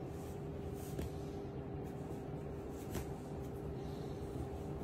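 Quiet room tone with a steady low hum, broken by two faint clicks about a second apart from the start and again about three seconds in.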